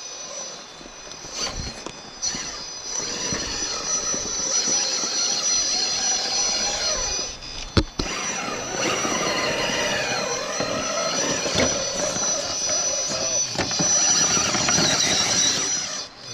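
1:10-scale RC rock crawler's electric motor and geared drivetrain whining as it crawls over rocks, the pitch rising and falling with the throttle over a high steady whine. A sharp click comes about halfway through.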